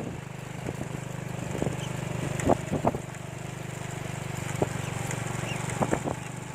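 A small engine running steadily at idle, with a few short sharp clicks over it.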